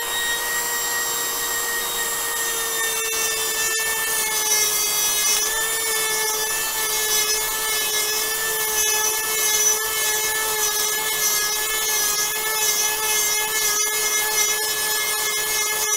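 Dremel Model 370 rotary tool running at full speed with a coarse sanding drum, grinding into a block of wood. Its steady whine drops slightly in pitch as the drum bites into the wood about three seconds in, with the gritty rasp of sanding running underneath.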